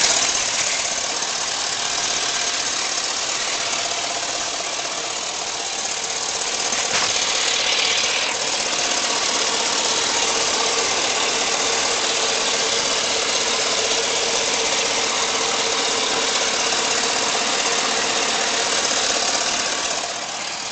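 Car engine running at operating temperature with a knock that the owner hears on the driver's side and is unsure of. It gets louder about seven seconds in.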